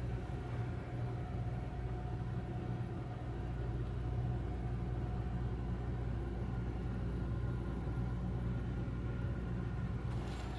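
A steady low hum that holds unchanged throughout, with no distinct events.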